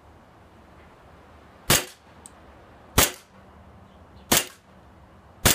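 Colt 1911 CO2 semi-automatic blowback airsoft pistol firing four single shots, about one every 1.3 seconds, the first a little under two seconds in. Each is a sharp crack of the CO2 discharge as the full-metal slide blows back.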